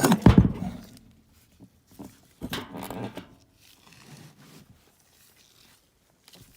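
Failed 3/4 hp Genteq furnace blower motor being handled and its stiff shaft forced round by hand: a knock, then a short pitched creak a couple of seconds in and fainter ones after, from the dragging bearings of a motor that is finished.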